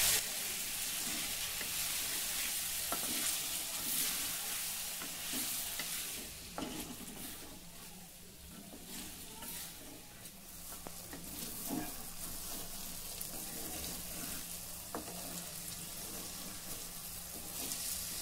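Marinated paneer frying in oil in a metal kadhai: a steady sizzle as the marinade's moisture cooks off, while a wooden spatula gently stirs and scrapes the pieces, with a few light knocks against the pan. The sizzle is stronger in the first few seconds and eases off after about six seconds.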